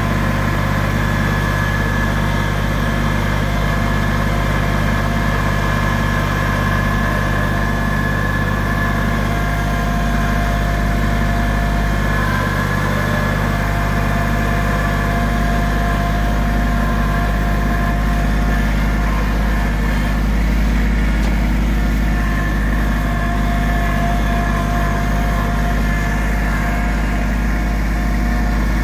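Compact tractor engine running steadily, heard from the operator's seat.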